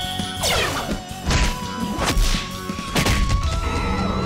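Action music with cartoon fight sound effects: a run of swoops falling in pitch and several thumping hits.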